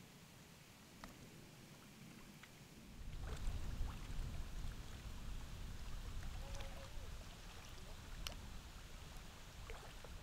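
Faint, uneven low wind noise on the microphone, starting about three seconds in, with a few faint ticks.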